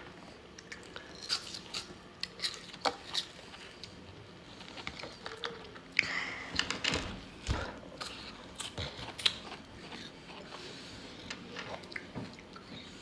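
Ice being bitten and chewed by two people close to the microphone: irregular sharp crunches and cracks, busiest and loudest around the middle.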